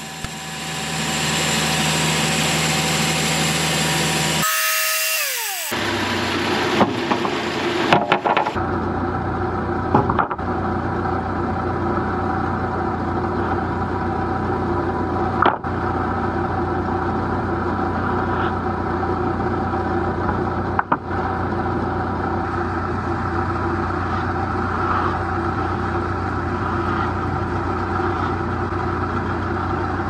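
Band sawmill blade cutting through a poplar cant for the first few seconds. After a short break, the sawmill's engine runs steadily while sawn boards are handled, with a few sharp knocks.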